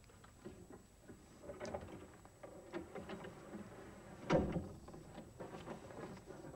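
A pull-out bed on a wheeled frame sliding out of a wall alcove, with scraping, rattling knocks and one heavy thud about four seconds in.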